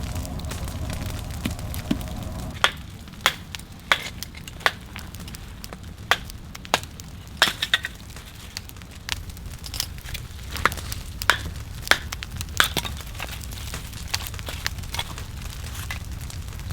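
Burning firewood crackling, with a steady low rush. Sharp pops start a few seconds in and come at uneven intervals, roughly one a second.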